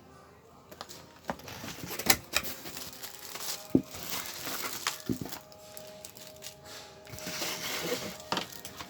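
Plastic packaging crinkling and rustling while items are handled, with irregular sharp clicks and knocks.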